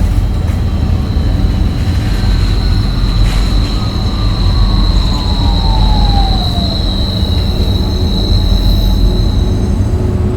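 Loud, steady low rumble with a high, steady squealing tone held over it until near the end, and a second tone gliding slowly downward through the middle.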